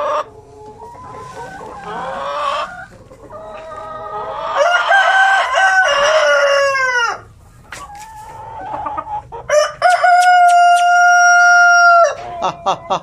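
Light Sussex chickens: a rooster crows twice. About four seconds in comes a crow that falls away in pitch at its end, and near ten seconds a long, level crow held for about two seconds. Hens cluck between and around the crows.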